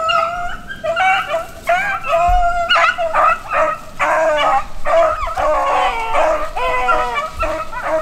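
Pack of beagles baying in overlapping bawls and yelps while running a cottontail rabbit's trail, the cry loud and close.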